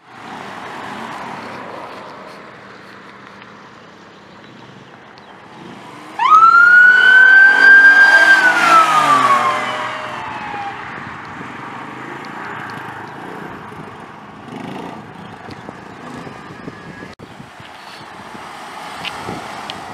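Police car siren giving a single wail about six seconds in: a quick rise in pitch, a held tone, then a falling pitch as it winds down. Before and after, passing cars.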